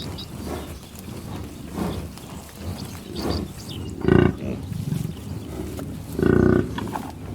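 Cattle mooing: a string of calls, the two loudest and longest about four and six seconds in, with softer moos between them.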